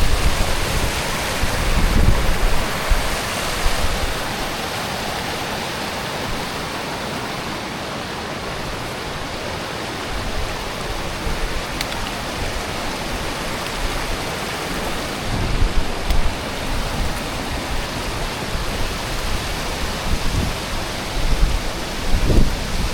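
Steady rushing noise, with wind buffeting the microphone in gusts about two seconds in, again around sixteen seconds in, and near the end.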